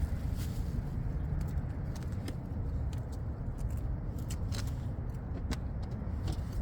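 Wind rumbling on the microphone, with scattered light clicks and knocks from the plastic air-intake housing parts being handled and fitted back together.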